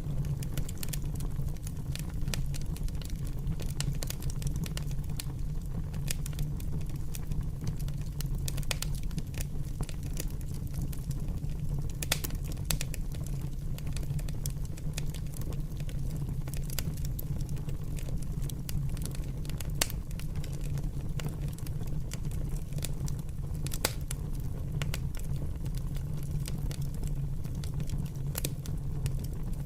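Fire crackling, with many irregular sharp pops over a steady low rumble; a few louder snaps stand out, one about twelve seconds in and others around twenty and twenty-four seconds.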